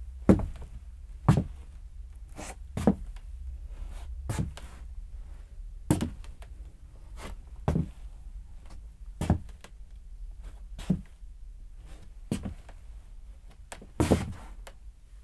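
A man's slow footsteps on a wooden floor, each step a knock with a brushing scuff of the sole across the boards. The steps come about one every second or a little slower, unevenly spaced.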